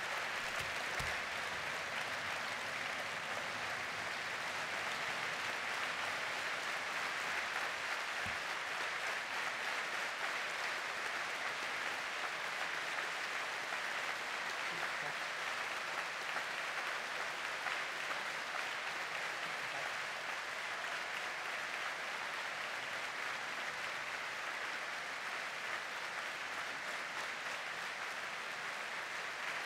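Large conference audience on its feet giving a long, steady round of applause at the close of a speech.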